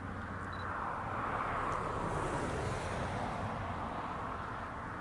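A vehicle passing at a distance: a broad noise swells for about two seconds, then fades, over a steady low hum.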